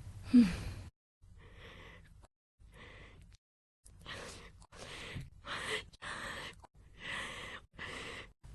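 A woman's breathing clips spliced together: a short voiced gasp with falling pitch near the start, then a string of about seven breaths in and out, each cut off abruptly by the editing.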